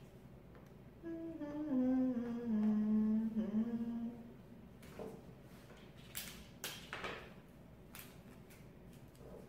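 A woman humming a short falling tune for about three seconds. After it come a few soft rustles and taps as she handles paper strips.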